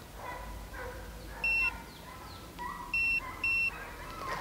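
Hounds baying faintly in the distance, with three short, steady high-pitched electronic beeps over them: one about a second and a half in, then two close together near the end.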